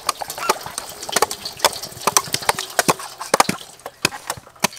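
A rapid, irregular series of sharp clicks and knocks, several a second.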